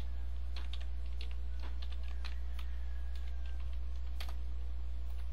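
Typing on a computer keyboard: scattered, irregular keystroke clicks. A steady low hum runs underneath.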